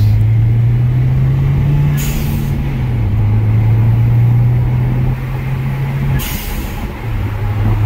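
Turbocharged 1.6-litre four-cylinder of a Nissan Juke Nismo RS pulling steadily under acceleration, heard from inside the cabin. A GFB blow-off valve set to full atmospheric venting gives a short hiss about two seconds in and again about six seconds in, when the engine note drops as the throttle closes.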